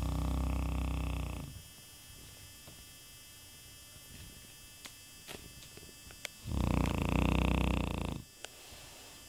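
A sleeping Shar-pei dog snoring: two loud, deep, pitched snores. One comes right at the start and one about six and a half seconds in, each lasting about a second and a half, with a quiet gap of about five seconds between them.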